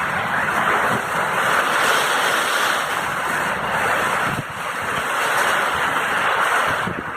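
Heavy rain in strong wind: a steady rushing hiss that swells and eases with the gusts.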